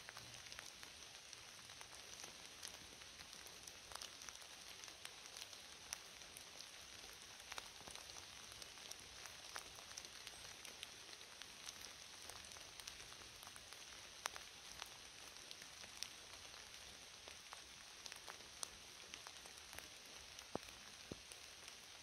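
Rain falling on forest leaves: a faint, steady hiss with many sharp single-drop ticks scattered through it.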